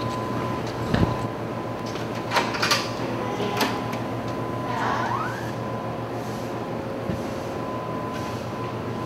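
Steady low hum with a faint steady high tone, broken by a knock about a second in, a few sharp clicks between two and four seconds, and a brief squeak around five seconds.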